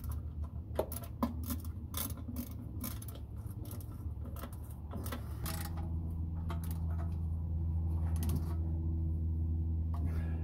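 Small metallic clicks and scrapes of bolts and a wrench being worked by hand into the inspection cover under the car. From about five and a half seconds in, a steady low hum runs underneath.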